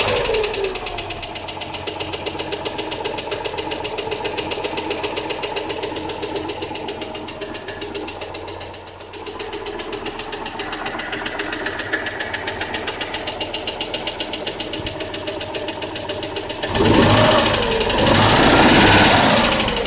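Citroën Dyane 6's air-cooled flat-twin engine idling with a fast, even pulse, then revved twice near the end, the pitch rising and falling each time.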